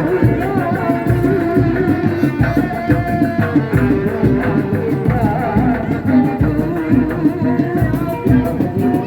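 Kuda lumping accompaniment music: drums beat a steady, quick rhythm under a sustained, wavering melody line.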